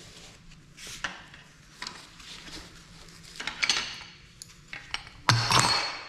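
Pipe wrench and steel gas pipe fittings clinking and scraping as fittings are worked off a removed furnace gas valve. The clinks are scattered, with a louder metal clatter near the end.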